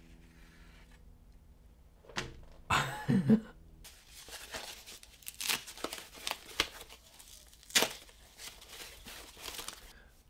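Paper packing being unwrapped by hand: crinkling and tearing, in many short rustling strokes, with a louder cluster of handling noise about two to four seconds in.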